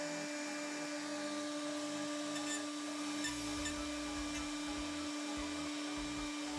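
Homemade CNC router's spindle running with a steady whine while its end mill cuts through MDF, with a vacuum hose held at the bit sucking up the dust.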